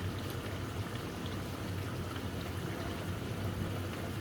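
Onion-and-spice masala bubbling and sizzling in oil in a karahi, a steady crackling hiss with a low hum underneath; the bhunai stage, when the oil starts to separate from the masala.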